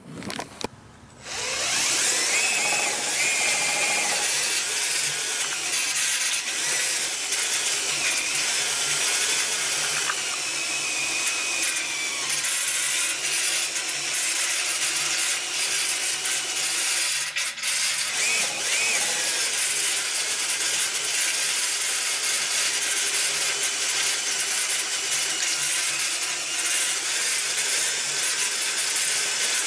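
Electric drill running steadily, spinning the Cummins diesel's oil pump through a welded-on shaft to pre-lube the engine before its first start, pushing oil up to the rocker arms. The drill starts about a second in and briefly lets off a little past the middle.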